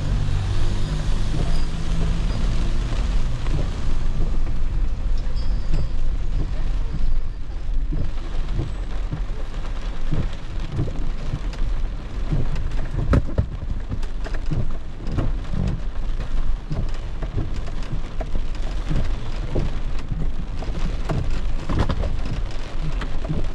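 Rain drumming on a car's roof and windshield, heard from inside the car, with many separate drop strikes over a steady low rumble.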